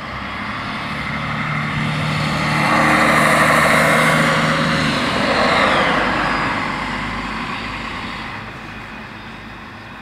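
DB class 650 (Stadler Regio-Shuttle) diesel railcar passing over a level crossing. Engine drone and wheel-on-rail noise build up and are loudest in the middle, a whine drops in pitch as it goes by, then the sound fades away.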